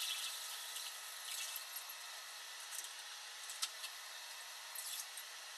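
Water poured from a pitcher into a washbasin, the pour fading out just after the start. Then a few small splashes and drips as hands wash in the basin, over a steady faint hiss.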